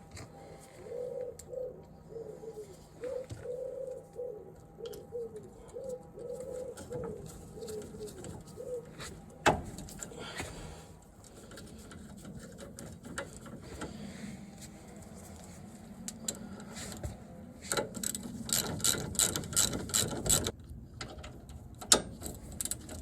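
A bird cooing over and over for the first nine seconds or so, mixed with the clicks and knocks of hand tools working on a car's wheel hub. There is a sharp knock about halfway through, then a fast run of clicks near the end.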